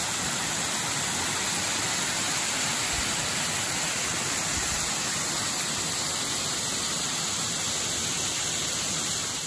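Waterfall cascading down steep rock slabs: a steady rush of falling water.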